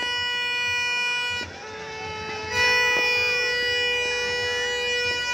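Horns blown in long, steady held notes on one pitch; the note breaks off about a second and a half in, a slightly lower one sounds briefly, and the steady note returns about a second later.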